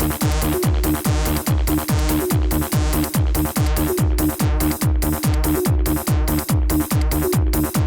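Electronic dance music in a techno/trance style, with a steady four-on-the-floor kick drum at about two beats a second under layered synths.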